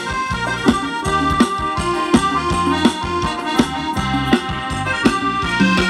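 Thai ramwong dance music in an instrumental passage between sung verses. A melody of held notes plays over bass and a steady drum beat.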